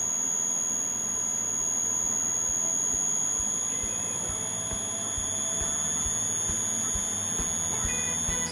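Electric motor of a home-built disc sander running on a variable frequency drive (VFD), giving a steady high-pitched whine of several tones, with faint low thuds repeating evenly underneath.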